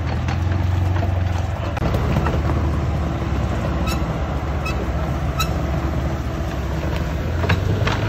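Vehicle engine running steadily at low revs, with several sharp clicks in the second half.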